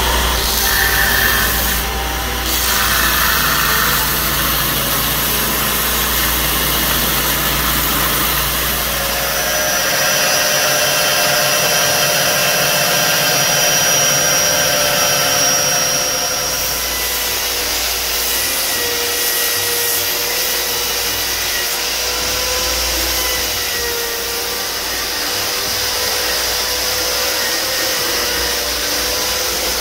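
Belt sander grinding the wooden handle scales of a hatchet: a steady grinding hiss over the motor's whine. The sound shifts twice as the work moves on to a small-wheel belt grinder and then to a spinning buffing wheel polishing the wood handle.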